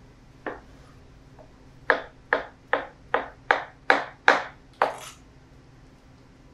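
Chef's knife chopping grilled vegetables on a white cutting board: a single cut, then a steady run of about eight chops, roughly two and a half a second.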